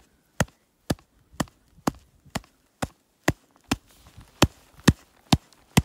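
Gloved hand tapping on a snow shovel blade laid flat on top of an isolated snow column, loading it in a compression test of the snowpack. The taps come as evenly spaced knocks, about two a second.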